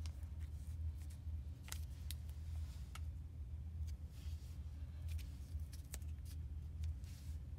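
Cellophane sleeve on a cigar crinkling and clicking softly now and then as fingers turn it, over a low steady hum.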